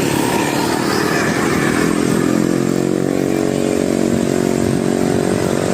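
A vehicle engine running steadily over traffic noise; its pitch rises slightly and then holds, growing clear about two seconds in.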